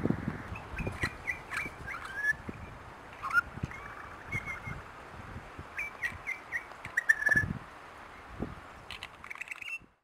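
Spiny-cheeked honeyeater calling: a scattered run of short, high chirping notes, some sliding up or down in pitch, with low thumps underneath.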